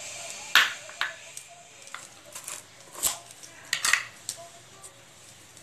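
Several sharp clinks and knocks of kitchen utensils against cookware, spread over a few seconds, over a faint steady hiss.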